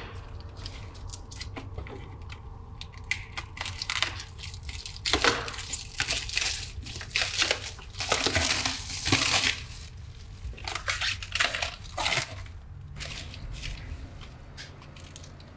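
Clear plastic wrap crinkling and tearing in repeated bursts as it is pulled off a cylinder head. The rustling dies away about three-quarters of the way through, leaving a low steady hum.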